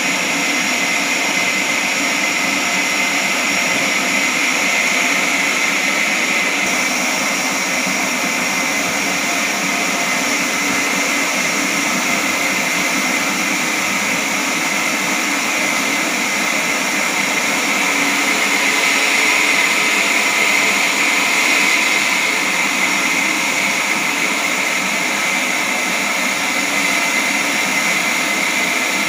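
A large horizontal band sawmill running steadily, a continuous machine noise with a high whine over it.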